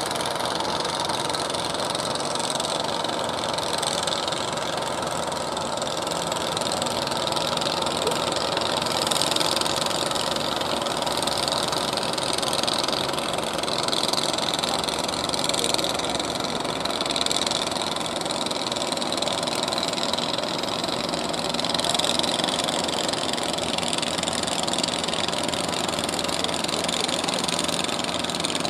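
Engine of a wooden fishing boat running steadily, under a steady hiss.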